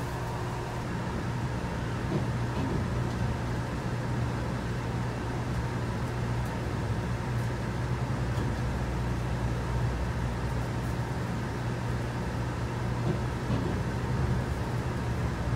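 Electric limited-express train pulling out of the station, heard from inside the passenger car: a steady low hum and running rumble that grows slightly louder as the train gathers speed.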